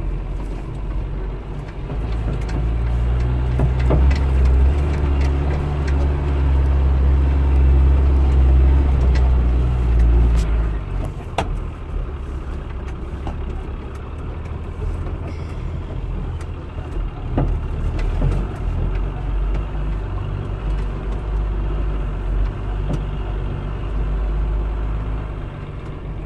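Truck engine running heard from inside the cab while driving a rough track, louder and working harder for several seconds before easing off, with knocks and rattles from the cab over the bumps.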